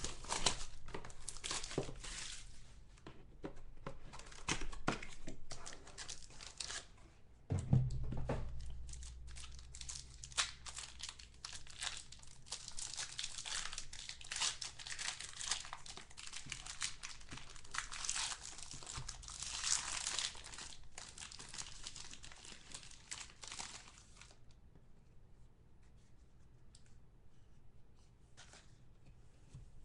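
Plastic wrapping crinkling and tearing as a sealed box of football trading cards is unwrapped and opened by hand, with a dull thump about eight seconds in. The crinkling stops near the end, leaving a few soft clicks and rustles.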